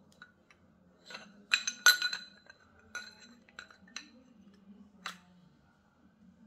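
Metal engine parts and tools clinking and ringing as the engine is put together by hand: a cluster of sharp clinks about two seconds in, then a few single clinks spaced about a second apart.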